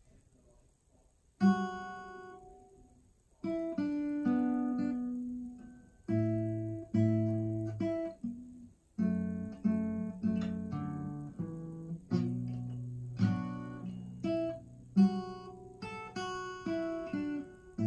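Acoustic guitar played solo: after a brief pause, a loose series of strummed chords and single picked notes, each struck sharply and left to ring out.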